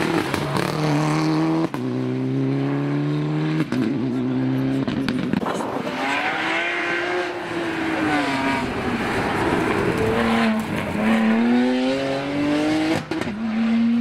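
Mitsubishi Lancer Evolution rally car's turbocharged four-cylinder accelerating hard out of a bend, its rising engine note cut twice by quick upshifts. A BMW 1 Series coupé rally car follows, its engine swelling and then falling away, before it climbs through the gears again with another shift near the end.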